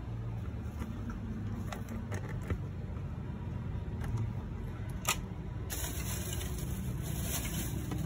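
Steady low rumble with a few faint, sharp clicks and taps, at about two seconds and again about five seconds in.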